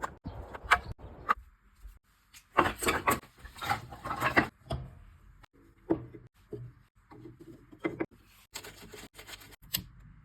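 Irregular wooden knocks and scrapes, with two longer stretches of rubbing and rustling, as firewood is handled in a small room.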